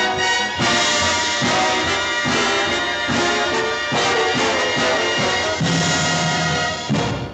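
Orchestral show-tune music led by brass, playing the closing bars with accented chord hits about once a second and a final held chord that cuts off at the end.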